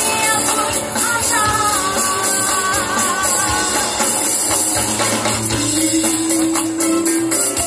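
Live band music with a woman singing lead, over a fast, steady shaken-percussion rhythm. The melody moves through the first half, and a long held note comes near the end.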